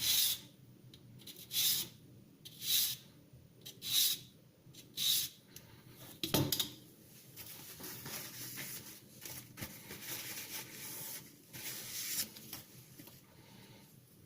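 Sandpaper rubbing along the steel teeth of a Victorinox serrated kitchen knife, sharpening the serrations. It starts as five separate strokes about a second apart, then turns into a softer, quicker run of rubbing that stops about 12 seconds in.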